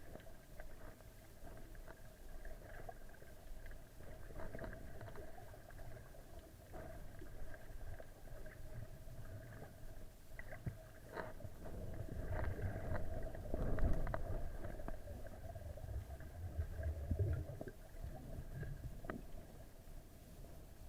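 Muffled underwater sound picked up through a camera's waterproof housing: a low rumble with a faint steady hum and scattered small clicks, swelling louder for a few seconds past the middle.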